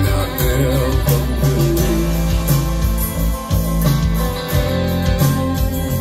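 Country song playing back: guitar over a bass line and a steady beat.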